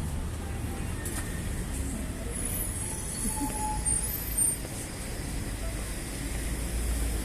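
City street traffic: a steady low rumble of passing vehicles, with a few brief high-pitched squeaks in the middle.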